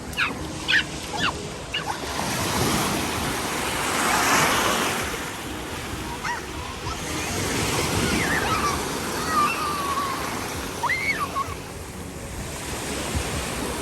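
Ocean surf: waves breaking and washing up the shore, swelling a few seconds in and again later. A few short, faint high cries sound over it in the second half.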